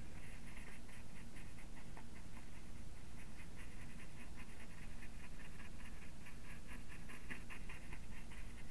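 Small paintbrush dabbing and scrubbing acrylic paint onto hardboard, a quick, irregular scratchy ticking over a steady low hum.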